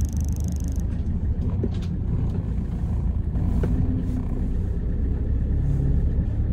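Steady low road rumble inside a moving van's cabin: engine and tyres while driving, with a couple of light knocks.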